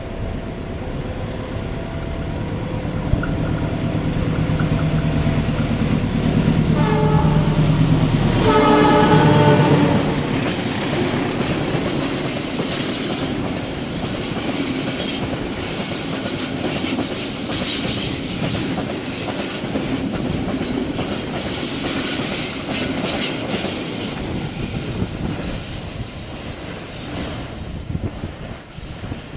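A train approaching with a rising rumble, sounding its horn in two blasts about seven to ten seconds in, the second the louder. It then passes close by with a long clatter of wheels on the rails that falls away near the end.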